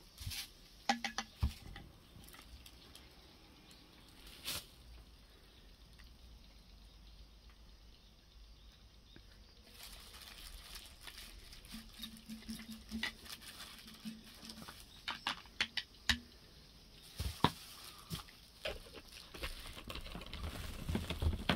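Quiet, scattered small clicks and taps from a glass measuring pipette and plastic bottles being handled, more frequent in the second half.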